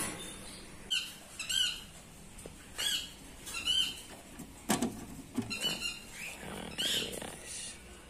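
Parrots giving a string of short, wavering chirps and squawks, with a single sharp click about halfway through.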